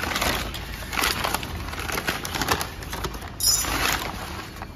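Thick brown paper wrapping being torn and crumpled by hand in several rustling bursts as a new clutch pressure plate is pulled out of it.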